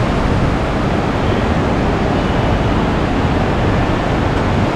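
Glacial river water of the Dhauli Ganga and Alaknanda rushing over rapids at their confluence: a steady, loud rush.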